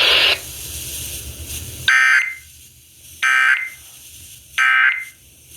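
Emergency Alert System end-of-message code: three short, buzzy SAME data bursts about 1.3 s apart, marking the end of the alert. Just before them, a loud hissing noise cuts off in the first half second.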